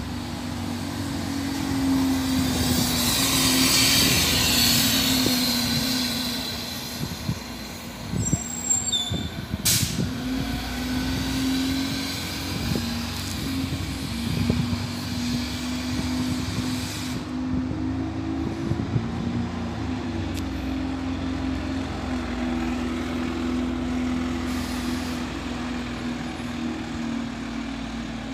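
A Heuliez GX127 city bus's engine running as the bus drives past close by, loudest a few seconds in. City buses keep running at a steady low pitch after that, with brief high squeals and a sharp click about eight to ten seconds in.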